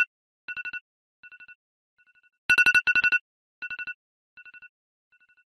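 Electronic telephone ringtone: a rapid two-tone trill, loud just at the start and again about two and a half seconds in. Each loud ring is followed by three ever-fainter repeats that die away like an echo.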